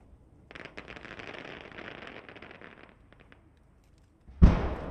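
Aerial fireworks shells: a dense crackling sparkle for about two and a half seconds, thinning out into a few scattered pops, then a single sharp, deep boom near the end, the loudest sound, that dies away slowly.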